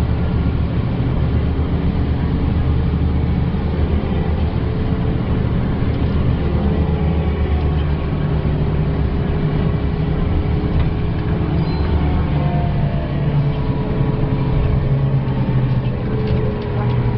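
Volvo B12B bus's diesel engine running under way, heard from inside the passenger cabin over road noise. It is a steady drone whose pitch shifts a few times as the bus changes speed.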